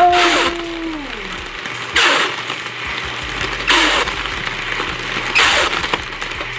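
Air cushion machine running and inflating a string of plastic air pillows. A steady low hum is broken four times, about every second and a half to two seconds, by a short crinkly rush as the film feeds out and each pillow is filled and sealed.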